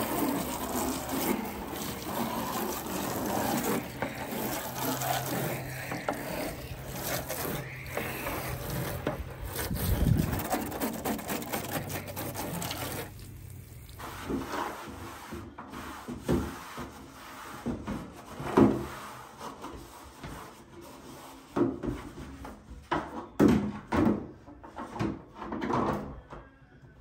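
Water from a garden hose spraying and splashing onto a plastic cutlery-drawer insert as it is rinsed. The stream stops about halfway, and scattered knocks and drips follow as the wet tray is handled.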